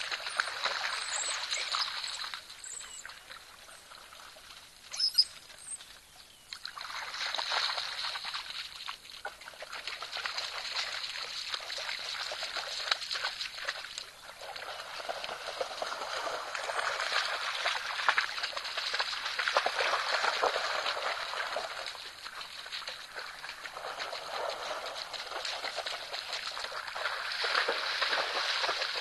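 Water splashing and sloshing as African wild dogs wade and run through a shallow waterhole, in bursts that swell and fade. There is a short sharp high sound about five seconds in.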